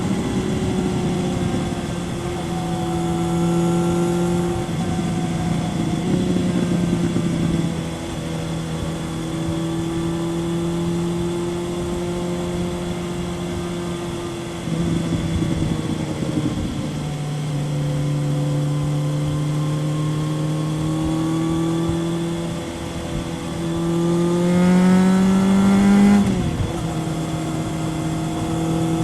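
Kawasaki ZRX 1100's inline-four engine running through an aftermarket Yoshimura exhaust at steady road speed, its pitch drifting gently up and down. Near the end the revs climb and then drop sharply.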